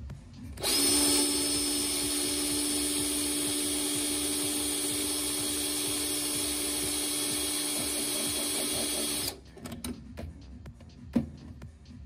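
Cordless drill boring a small pilot hole through the boat's aluminium hull: a steady, even-pitched motor whine that starts about half a second in and stops about nine seconds in. One sharp click follows near the end.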